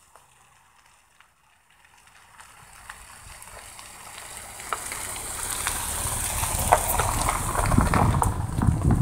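Wind on the microphone, building from fairly quiet over the first few seconds into a steady rushing hiss with gusty low rumbles, and a few faint crackles and clicks.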